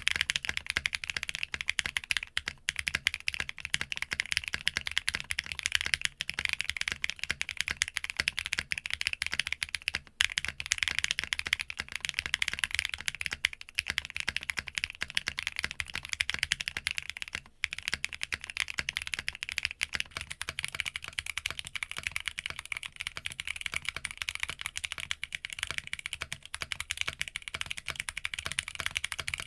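Continuous fast typing on an Arc60 60% mechanical keyboard, the keys clacking in a dense stream with a few brief gaps. It is heard first with Roselles switches on a POM plate, then on a custom polypropylene plate, and near the end with EMT v2 switches on an aluminium plate.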